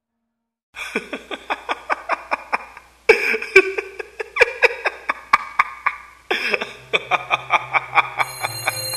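Laughter in three quick bursts of short ha-ha pulses, about four a second. Music with steady high tones comes in near the end.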